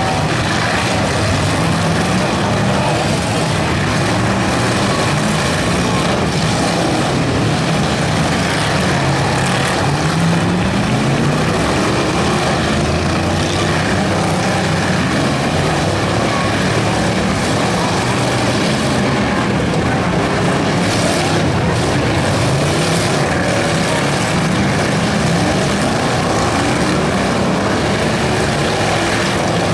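Several stock car engines racing on a dirt figure-8 track, overlapping and revving up and down as the cars accelerate and back off through the turns.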